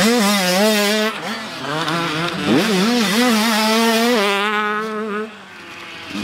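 Motocross dirt bike engines revving as riders power through a tight corner, their pitch wavering up and down with the throttle. There is a quick rising rev about two and a half seconds in, and the engine sound falls away briefly near the end.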